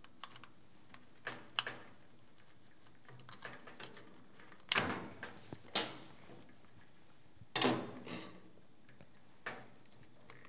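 Scattered clicks and knocks as a small portable TV's metal chassis and a screwdriver are handled on a stainless-steel workbench, with three louder clanks near the middle as metal meets the steel top.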